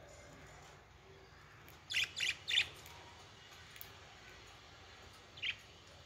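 Pet budgerigars chirping: three quick, high chirps about two seconds in, then a single chirp near the end.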